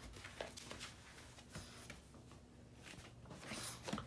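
Faint scuffling and light taps as a French bulldog puppy scrambles and paws at a person, with a louder brushing rustle near the end.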